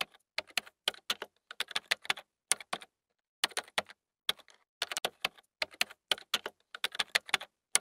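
Typing on keys: quick runs of sharp key clicks in irregular bursts, separated by dead silence, with a longer gap about three seconds in.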